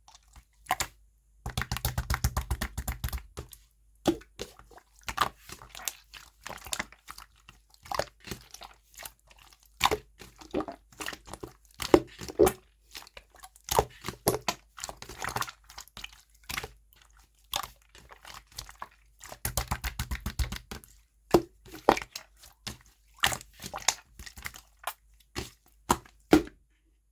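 Clear slime being squeezed, pressed and stretched by hand, giving off irregular sticky clicks and crackling air-bubble pops. There are two denser, louder stretches, about two seconds in and again about twenty seconds in.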